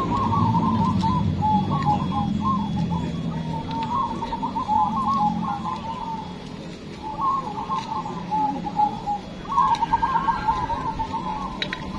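Several caged zebra doves (perkutut) cooing, their rolling, trilled coos overlapping in long phrases, with a short lull about six or seven seconds in before the cooing picks up again.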